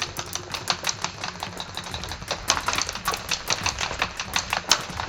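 Footsteps crunching on the ground: a dense, irregular run of sharp clicks and crunches, several a second.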